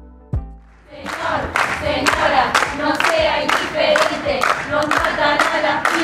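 A crowd of women chanting together in unison to steady rhythmic hand clapping, about two claps a second, starting about a second in as a last note of music dies away.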